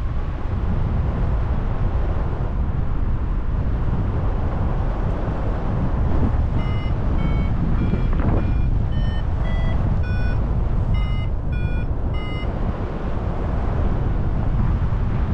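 Airflow rushing over the microphone in paragliding flight. From about six seconds in, a variometer beeps in short tones at shifting pitches, about two a second, for some six seconds: its climb tone, signalling the glider is in rising air.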